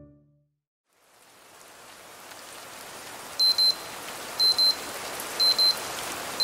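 Electronic alarm beeping in pairs of short high beeps about once a second, starting about three and a half seconds in, over a steady hiss that fades in from about a second in.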